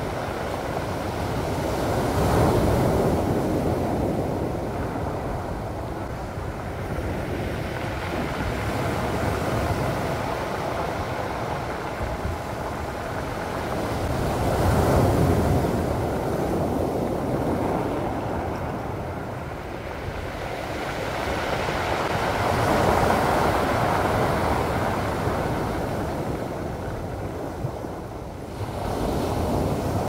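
Sea waves breaking and washing up a pebble beach: a steady rushing surf that swells and eases, with the biggest surges about two seconds in, midway, and about three-quarters of the way through.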